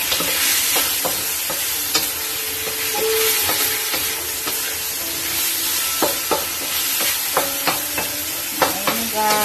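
Chicken pieces sizzling in a stainless steel wok while a wooden spatula stirs and scrapes them, with sharp knocks of the spatula against the wok that come more often in the second half.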